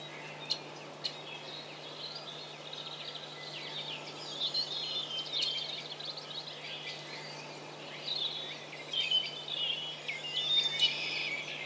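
Outdoor ambience of birds chirping and singing, many short calls and trills, over a steady low hum, with a few sharp clicks in the first seconds.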